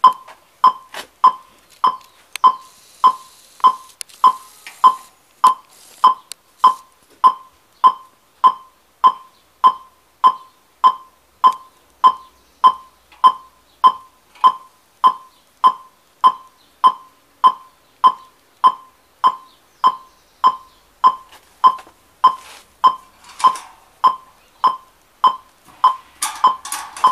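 DirecTV receiver's signal-strength indicator beeping through the television's speaker: short, even, mid-pitched beeps, a little under two a second. The meter reads 0%, so no satellite signal has been found yet; the beeping grows more intense as the dish is aimed better. Some clattering comes in near the end.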